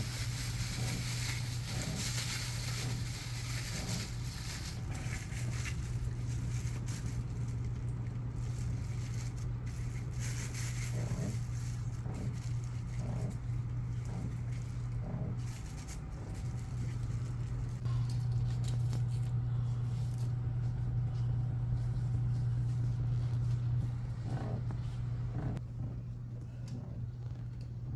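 A steady low mechanical hum with rumble beneath it, and light knocks and rustles scattered over it.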